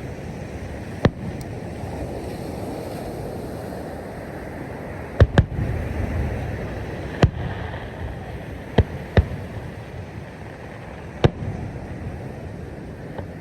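Fireworks going off: about seven sharp bangs at uneven intervals, two of them in quick pairs, over a steady background rush.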